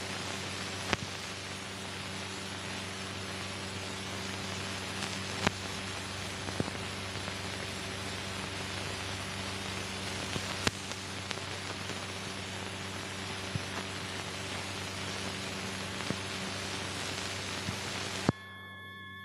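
Steady hiss and low hum of an old film soundtrack carrying no recorded sound, with scattered clicks and pops from wear on the film. About a second before the end it cuts off abruptly to a much quieter background with a few faint steady tones.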